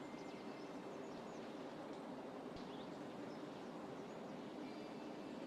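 Faint bird chirps now and then over a steady low hiss of background ambience.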